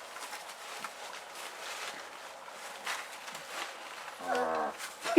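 Faint stirring and rustling from a litter of young animals settling to sleep. About four seconds in, one of them gives a short, low-pitched sound lasting about half a second.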